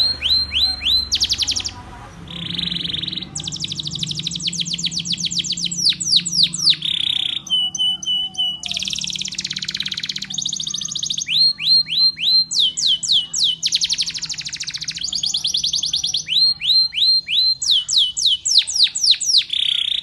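Canary singing a long, loud song made of rapid trills and runs of fast sweeping notes, with a short held whistle about eight seconds in.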